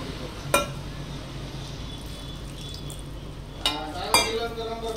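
A hand mixing wet gram-flour batter in a glass bowl, with a few sharp clicks: one about half a second in and two near the end.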